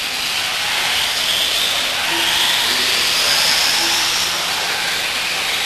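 Several electric RC off-road buggies racing, their motors and gears whining in a high pitch that rises and then falls as they speed up and slow, over a steady hiss.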